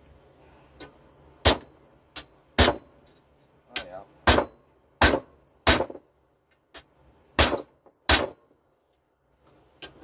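Hammer blows peening the rivets of a new sprocket nose tip onto a 36-inch Cannon chainsaw guide bar, with the bar resting on a chunk of aluminum as an anvil. There are about seven sharp, loud strikes at uneven intervals, with a few lighter taps between them.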